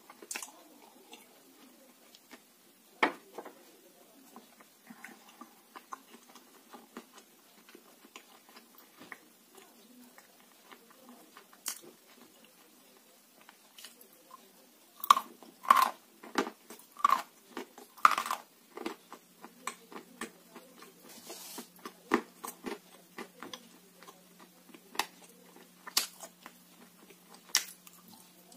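Close-up crunching and chewing of dry grey clay lumps: a single sharp knock about three seconds in, then a quick run of loud crunches about every half second past the middle, and scattered crunches after that.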